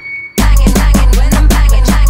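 Music soundtrack: after a brief near-silent break, a track with a fast, steady beat comes in about half a second in.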